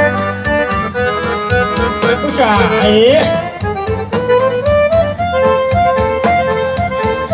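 Quadrilha dance music with an accordion melody over a quick steady beat, about four beats a second. About two seconds in, a sliding sound swoops down and back up for about a second over the music.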